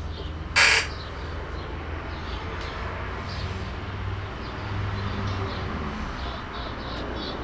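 Crowd noise in a fight venue over a steady low hum, with one short, sharp noisy burst about half a second in.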